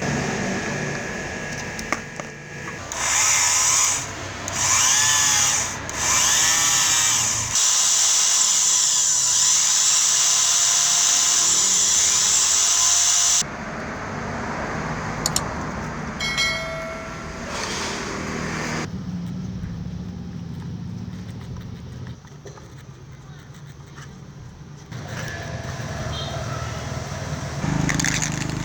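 Electric drill motor triggered in three short bursts, its whine rising and falling as it spins up and coasts down, then run continuously for about six seconds before cutting off abruptly. Quieter clicks and handling sounds follow.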